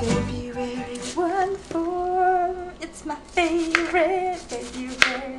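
A person humming a tune in long, wavering held notes with short breaks between them, and one sharp click near the end.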